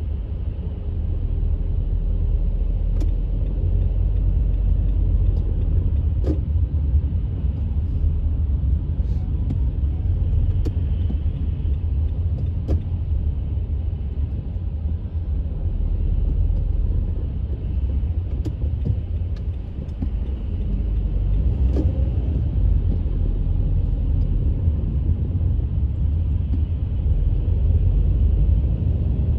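Steady low rumble of a car driving, heard from inside the cabin, with a few faint scattered ticks.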